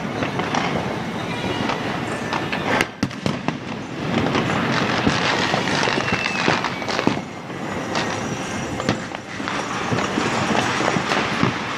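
Firecrackers and fireworks going off all over the city at once: a dense, unbroken crackle of many bangs and pops, with a few sharp cracks standing out about 3 seconds in.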